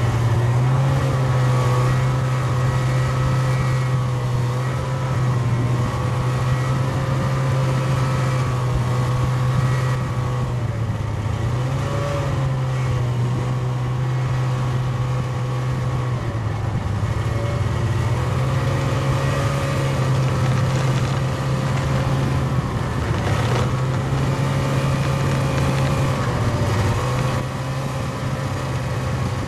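Snowmobile engine running steadily at speed, heard from on board. Its pitch dips and recovers a few times.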